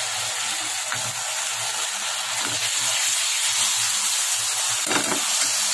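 Barbecue sauce sizzling in a hot nonstick frying pan as it is spread with a silicone spatula: a steady hiss with a faint low hum beneath.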